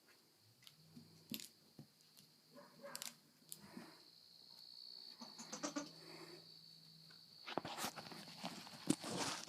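Domestic goat making vocal sounds, short bleats and other noises, with a louder noisy stretch near the end. A steady high insect trill runs behind.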